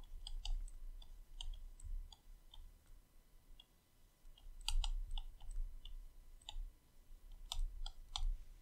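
Irregular light clicks and taps of a stylus on a tablet's writing surface as words are handwritten, some coming in quick little clusters.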